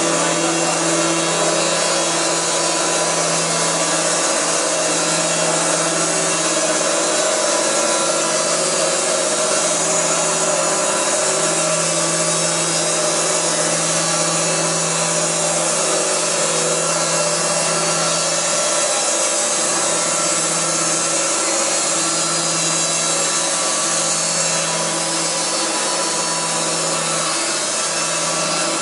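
Lynx EA sawmill running steadily while its blade saws through wood: a constant rasp of the cut over the steady hum and whine of the machine.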